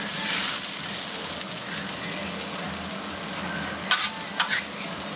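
Food sizzling steadily on a hot flat grill, with two short sharp clacks about four seconds in.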